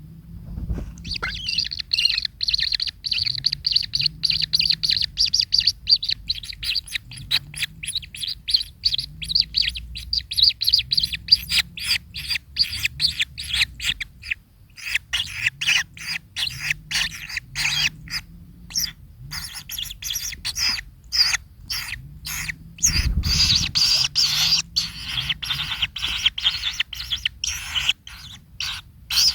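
Kingfisher (tengkek) calling in a fast, unbroken run of short, sharp chirps that starts about a second in, with a brief thinning about halfway through. A low thump comes about two-thirds of the way through.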